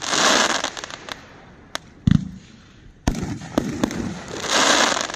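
500-gram consumer fireworks cake firing: sharp bangs of shots launching and breaking, one heavier low thump about two seconds in. Two spells of dense crackling from the glittering star bursts, one at the start and one about four and a half seconds in.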